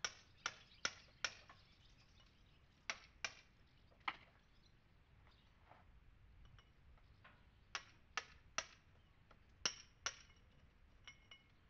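Hammer striking a chisel to chip old mortar out of a stone wall: sharp, ringing metallic taps in quick runs of two to four, with pauses between the runs.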